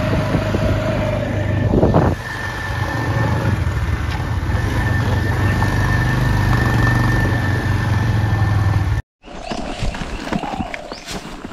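Vehicle engine running steadily while driving, a low hum with a thin high whine above it. About nine seconds in it cuts off abruptly, and scattered clicks and knocks follow.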